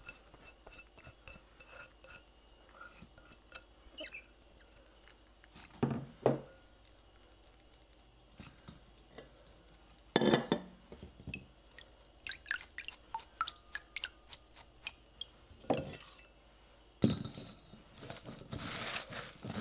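A glass bowl and a stainless steel mesh colander knocking and clinking against each other as wet chopped vegetables are tipped out to drain, with a few sharp knocks, the loudest about six and ten seconds in. Near the end, hands squeezing the wet vegetables in the colander make a dense rustling and squelching.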